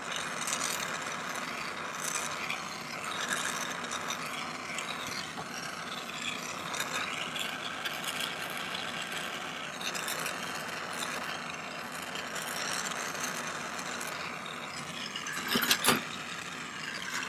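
Gas soldering torch hissing steadily as its flame heats sterling silver wire branches for hard-soldering. A few sharp clicks and knocks come near the end.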